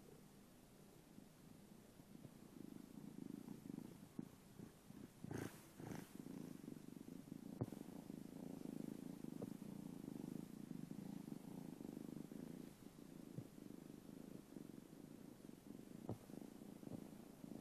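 Kitten purring close to the phone: a low, steady purr that sets in a couple of seconds in and keeps going, with a few soft knocks as fur brushes the phone.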